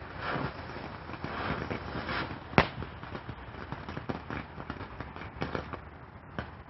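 A Mega Banger firecracker goes off with a single sharp bang about two and a half seconds in, against steady background noise.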